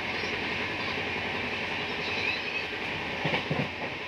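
Steady running noise of a moving Indian passenger train heard from inside a sleeper coach, with a few faint brief high squeals and a short bout of knocking about three seconds in.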